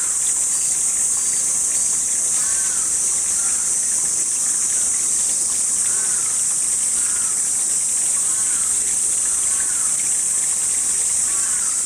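Steady high-pitched insect chorus throughout, with faint short rising-and-falling chirps every second or two.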